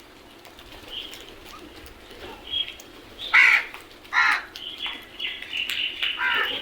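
Crows cawing: three loud, harsh caws in the second half, with fainter, higher calls between them.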